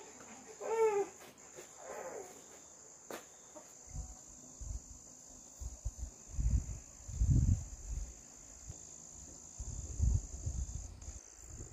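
Insects chirring in a steady high-pitched drone, with a short falling call about a second in and low rumbling knocks through the second half.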